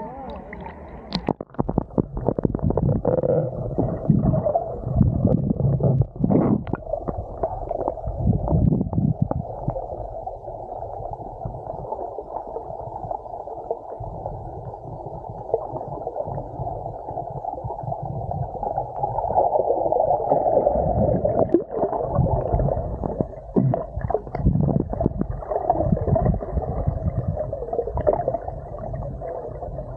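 Water heard through an action camera's submerged microphone: a muffled, low rumbling with sloshing and scattered knocks as the camera moves through the water.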